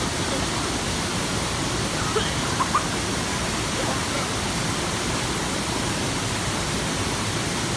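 Waterfall pouring: a steady, even rush of falling water, with a few brief faint higher sounds just over two seconds in.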